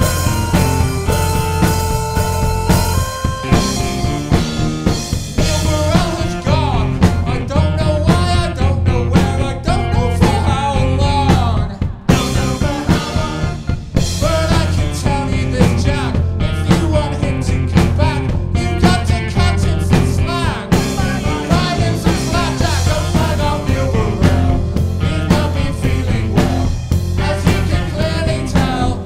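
Live rock band playing: electric guitars, drums and keyboard. Held notes open it, and a voice sings over the band from about six seconds in. The music drops out for a moment about twelve seconds in.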